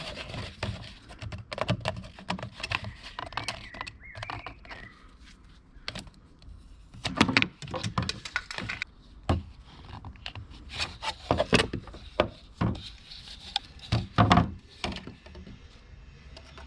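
Irregular knocks, clicks and short scrapes of objects being handled and set down by hand.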